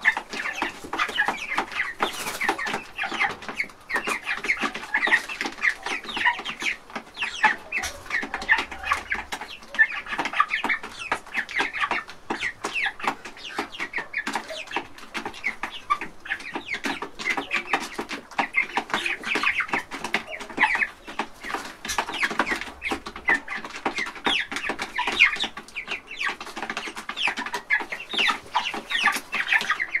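Silver Sebright bantam hens and rooster clucking in a continuous chatter of short, overlapping calls.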